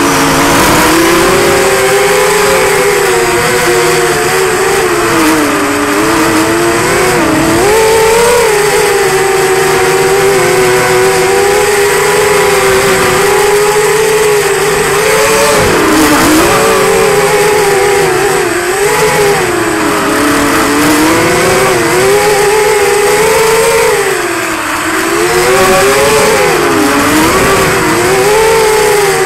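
Brushless motors and propellers of a QAV210 racing quadcopter, heard from its onboard camera: a whine whose pitch rises and falls continually with the throttle, over a steady hiss of rushing air.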